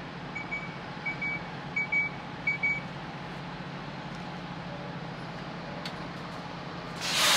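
City route bus pulling in to the stop, its engine running with a steady low hum while a high electronic warning beep repeats during the first three seconds. About seven seconds in, a loud burst of compressed-air hiss comes from the bus as it stops.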